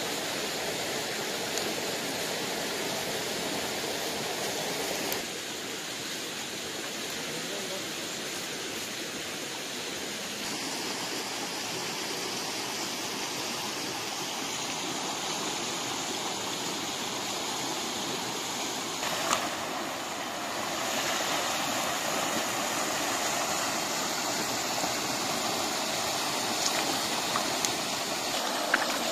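Steady rushing of a shallow rocky stream, with a few faint knocks.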